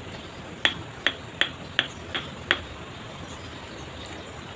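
Six quick, sharp taps, about three a second, of a hand tool knocking a river stone to seat it in fresh mortar.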